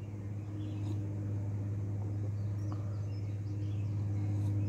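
A steady low mechanical hum, with a few faint bird chirps about halfway through.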